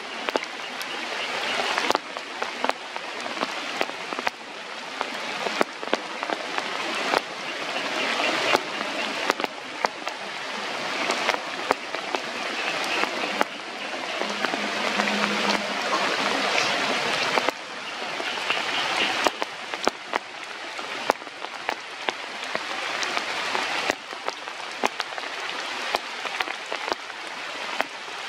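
Rain falling steadily, with many individual drops ticking sharply close by over the hiss.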